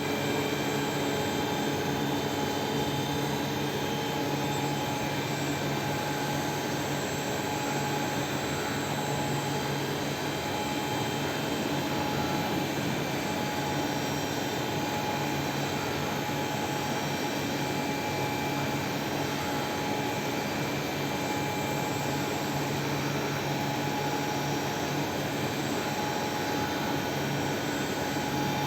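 CNC lathe running steadily while machining: a continuous, even machine drone with several constant tones and no distinct breaks.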